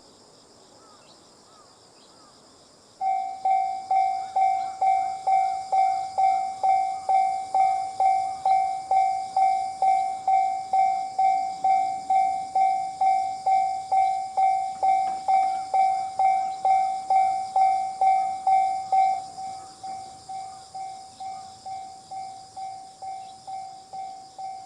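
Japanese railway level-crossing alarm in the JR standard tone: an electronic bell-like ding repeating about twice a second, starting about three seconds in. About three-quarters of the way through it drops sharply in volume and keeps ringing more quietly, as crossing alarms are turned down once the barriers are lowered.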